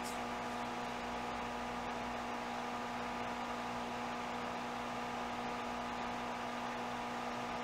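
A steady electrical hum with several fixed tones over a constant hiss: the background noise of the recording, with nothing else happening.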